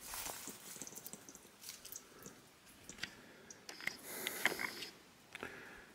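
Faint rustling and scattered light clicks of leaves and twigs being moved, with a few short high chirps about four seconds in.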